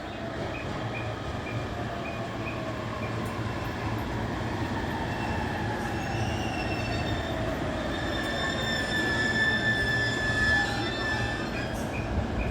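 Joban Line local electric train running through the station, its motor whine falling steadily in pitch as it slows, with high steady brake and wheel squeal from about halfway through as it comes to a stop.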